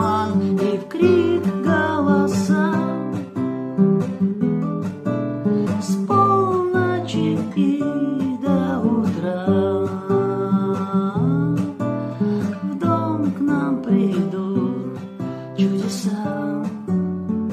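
Music: strummed acoustic guitar with a sustained melody line over it, in an instrumental passage of the song.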